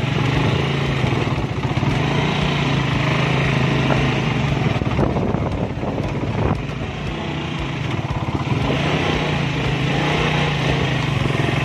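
Small motorcycle engine running steadily. Its drone dips a little about seven seconds in and comes back up a second or so later.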